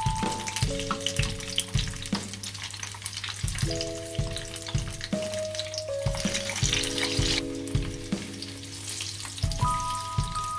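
Chicken-stuffed banana peppers frying in hot oil, a steady sizzle and crackle. Background music with held chords and a beat plays over it.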